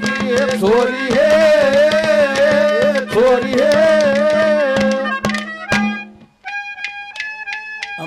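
Haryanvi ragni accompaniment playing an instrumental passage: a sliding, wavering melody over fast hand-drum strokes. About six seconds in it breaks off and gives way to a few steady, stepped held notes with lighter percussion.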